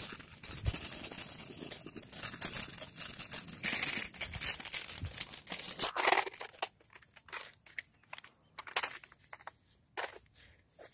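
Rustling, crackling noise on a phone microphone, steady for about six seconds and then breaking up into short separate crackles.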